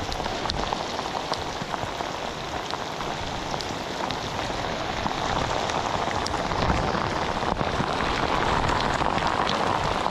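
Heavy rain falling on a river's surface: a dense, steady hiss with scattered sharp ticks of drops landing close by, growing a little louder in the second half.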